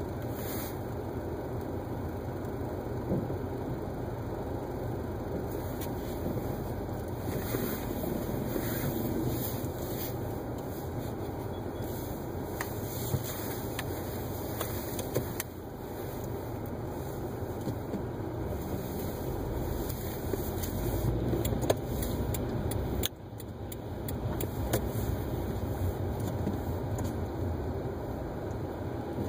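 Steady low rumble of a car's engine and tyres heard from inside the cabin while creeping through slow traffic on a wet street, with a few small clicks and knocks about three-quarters of the way in.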